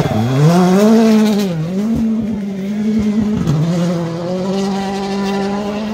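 Rally car engine revving hard under acceleration. Its pitch climbs, drops sharply at gear changes about one and a half and three and a half seconds in, then holds steady.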